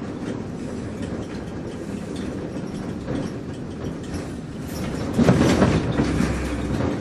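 Moving bus heard from inside: steady engine and road rumble with the body and fittings rattling, swelling louder about five seconds in.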